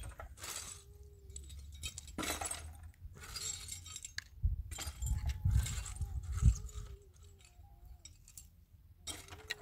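Stones and broken cinder-block pieces clinking and scraping as a small child handles them and scoops dirt in a plastic tub: scattered short clinks, busiest around the middle.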